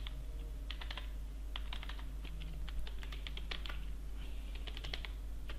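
Computer keyboard keys clicking in short irregular runs as a line of text is typed, over a steady low hum.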